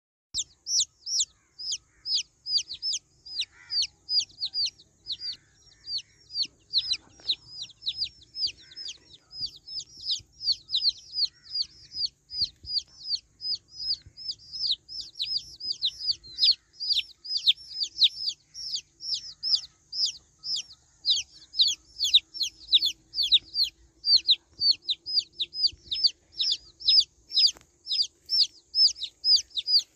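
Baby chicks peeping: short, high-pitched calls that each fall in pitch, repeated about three to four times a second without a break.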